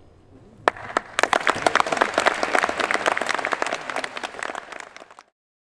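Audience applauding: a few scattered claps, then dense clapping that cuts off abruptly near the end.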